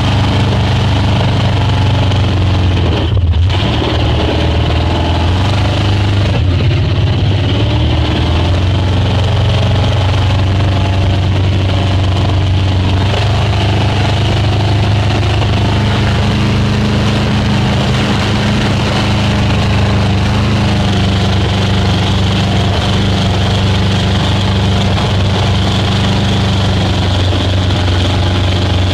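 Speedboat engine running steadily under way: a deep, even drone with a constant hiss over it, dipping briefly about three seconds in.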